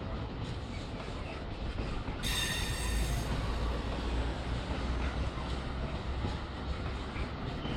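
Container freight wagons rolling past on the rails with a steady rumble and wheel clatter. About two seconds in a high-pitched squeal rings for about a second, and the low rumble swells for a few seconds as a lorry passes on the road below.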